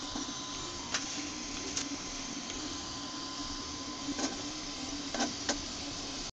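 eMAKER Huxley RepRap 3D printer printing: its stepper motors run with a steady whirring hum and a thin whine as the extruder carriage moves over the bed. A few sharp ticks come through at irregular moments.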